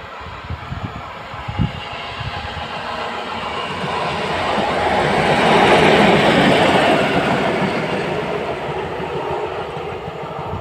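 SM42 diesel-electric shunting locomotive running light past, its engine and wheels growing louder as it nears, loudest about six seconds in, then fading as it draws away. A few sharp knocks sound in the first two seconds.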